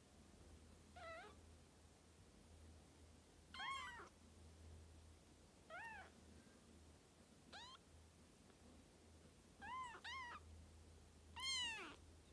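Three-week-old Birman kittens mewing: seven short, high-pitched mews spaced a second or two apart, two of them in quick succession, the loudest near the end.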